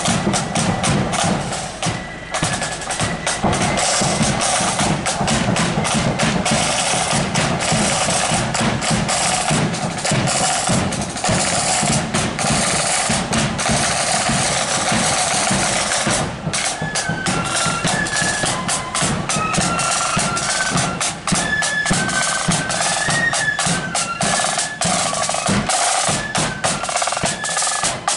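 Marching flute band playing: side drums and a bass drum beating out a march throughout, with the flutes coming in with the tune a little over halfway through.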